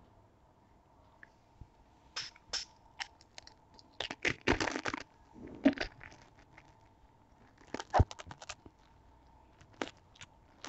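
Crisp pani puri crunching and crackling as it is bitten and chewed. A run of sharp crunches starts about two seconds in and is loudest around the middle.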